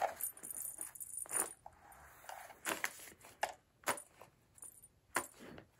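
Scattered light rustles and clicks from a SmartyKat cat toy's nylon cover as the wand moving beneath it shifts the fabric.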